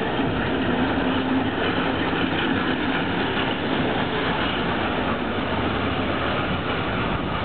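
Electric street tram passing close by and pulling away along its track, wheels running on the rails with a steady rumble. A faint low hum sounds through the first couple of seconds, then fades.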